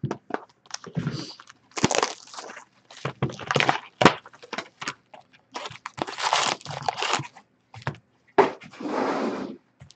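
Plastic shrink wrap crinkling and tearing as sealed Upper Deck Artifacts hockey card boxes are unwrapped and opened. Irregular crackles and rustles come with a few sharp taps as the boxes and card packs are handled and set down on a glass counter.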